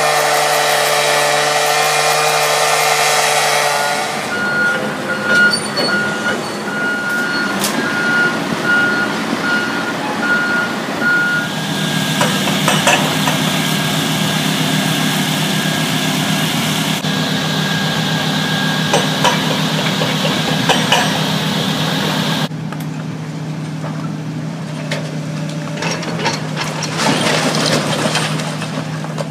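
A hand-held cut-off saw whines as it cuts through metal for the first few seconds. A reversing alarm then beeps steadily for several seconds. After that a hydraulic demolition excavator's engine runs under load while its grapple bucket tears at a masonry wall, with scattered knocks and crunches of breaking wall.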